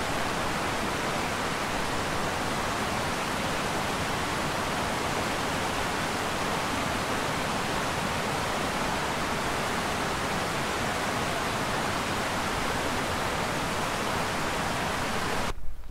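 Steady, loud rush of cascading river water, an even noise with no let-up, that cuts off suddenly near the end.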